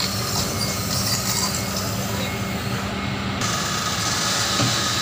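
Kobelco SK200 hydraulic excavator's diesel engine running steadily under load, with a low hum, as the machine lifts and swings a large corrugated HDPE pipe slung from its bucket.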